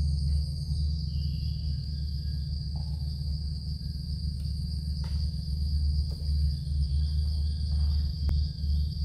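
Insects trilling in a steady, high-pitched drone over a constant low rumble, with a faint click about five seconds in and another near the end.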